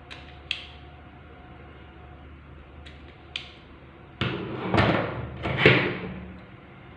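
Self-adjusting wire stripper working on a wire: a few sharp clicks, then from about four seconds in a run of louder clacks and clatter as the tool's jaws snap and it is put down on the tabletop, loudest just before the end.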